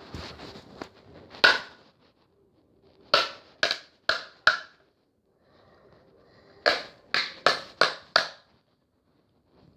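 A plastic light-up fidget spinner being knocked against a hard surface to make its lights come on: one sharp knock, then two quick runs of knocks, four and then five, each about half a second apart.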